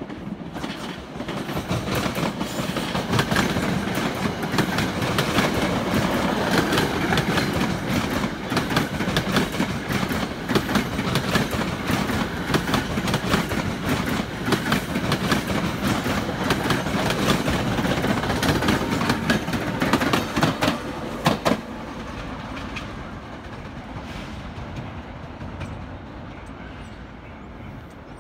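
Passenger train passing close by, its wheels clicking rapidly over the rail joints. The sound drops off suddenly about 21 seconds in and then fades away.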